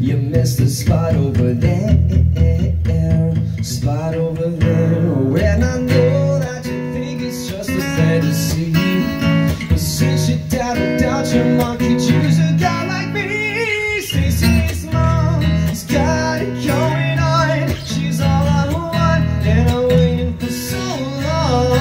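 Acoustic guitar strummed steadily while a man sings a melody over it.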